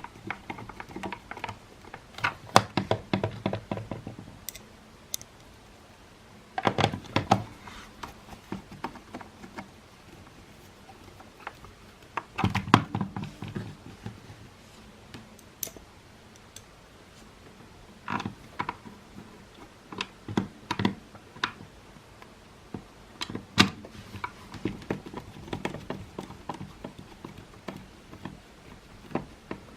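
Plastic parts of a Makita CL108FD cordless vacuum and small tools being handled: irregular bursts of clicks and taps with quiet gaps between them.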